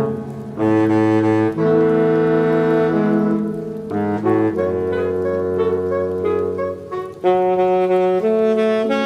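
Saxophone choir playing slow, sustained chords in close harmony, the chords changing every second or so with short breaths between phrases.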